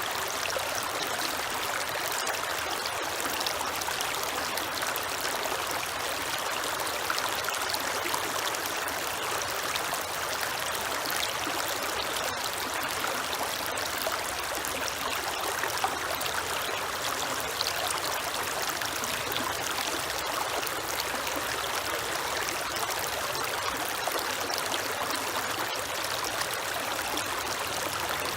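Creek water running over rocks: a steady splashing and trickling with no pauses.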